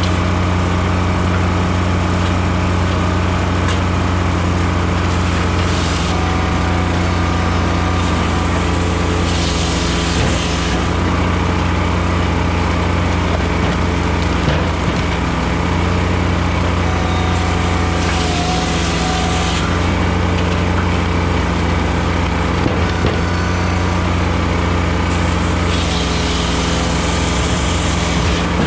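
Blockbuster firewood processor running steadily as it cuts and splits softwood logs. A hissing rush rises and falls away several times as the machine cycles, over a few faint knocks of wood.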